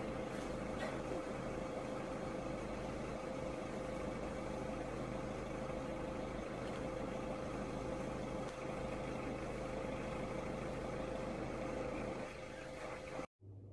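A steady mechanical hum like an idling engine, with one constant mid-pitched tone over a low rumble. It cuts off suddenly near the end.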